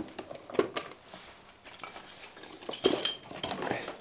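Diving weight plates knocking and clinking together as they are handled, a few sharp knocks with the loudest cluster about three seconds in.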